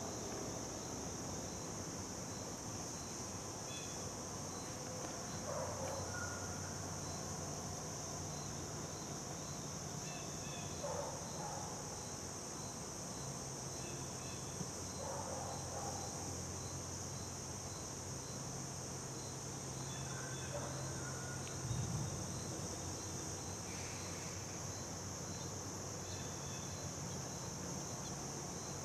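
Summer insects droning steadily and high, with a faint chirp repeating at an even pace, a few short bird calls, and a low steady hum underneath.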